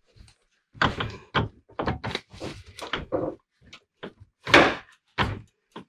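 Radiator being wiggled and worked up out of a 2011 Jeep Grand Cherokee's engine bay: a run of irregular knocks and clunks as it bumps against the surrounding parts, the loudest about four and a half seconds in.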